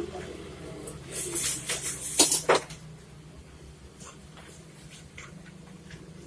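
Handling clatter on a repair bench: a run of rustles and clicks about a second in, with two sharp clicks just after two seconds, then a low steady hum.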